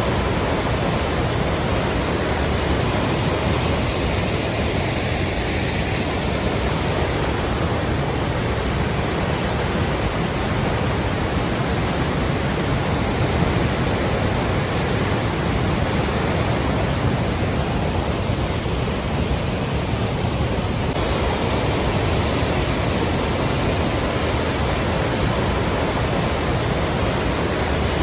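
Flowing water, a steady, even rushing sound that does not change.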